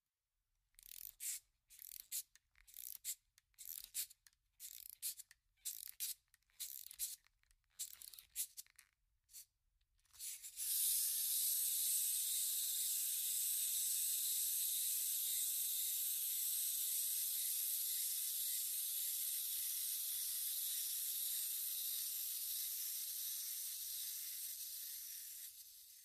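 Wind-up toy: the clockwork key is turned in a run of short, scratchy winding strokes, about two or three a second. About ten seconds in, the wound spring is released and the clockwork runs as a steady high whirr, fading slightly toward the end.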